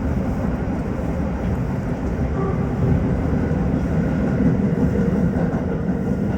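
Tokyo Metro 15000-series subway train running at speed, heard from inside the car: a steady low rumble of wheels on rail.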